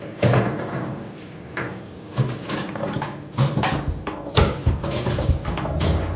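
Tornado foosball table in live play: the ball cracks against the plastic men and the table walls, with rods clacking, in quick irregular knocks. Several hard strikes come in the second half.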